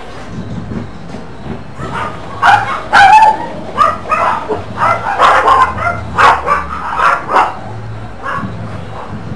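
A dog barking in a quick run of about a dozen loud barks, starting about two seconds in and stopping a couple of seconds before the end, over a steady low hum.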